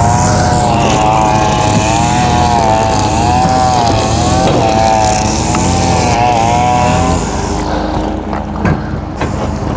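Gas string trimmer (weed eater) engine running, its high note wavering up and down as the throttle changes, over a steadier low lawn-mower drone. The trimmer note stops about seven seconds in, leaving the mower drone and a few light knocks.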